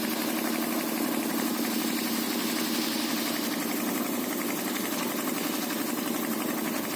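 Engine of a site concrete mixer with an attached ladder lift running steadily at an even speed.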